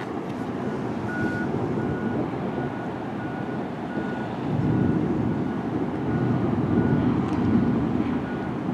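A vehicle's reversing alarm beeping steadily at one pitch, a little under two beeps a second, over a low rumble that swells from about halfway through.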